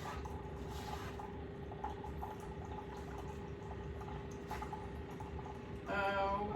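A steady kitchen appliance hum with a few faint light clicks, and a short voiced exclamation near the end.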